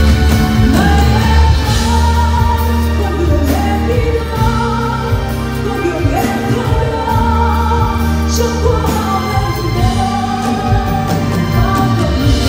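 Female singer performing a song live with band accompaniment, her melody gliding over steady sustained chords and bass.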